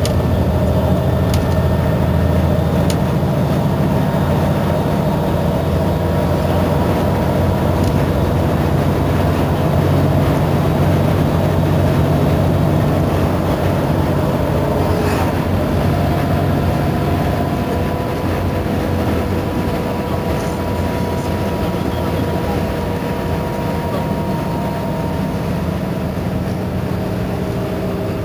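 Iveco Crossway bus's diesel engine idling steadily while the bus stands still, with a thin steady whine above the low engine note.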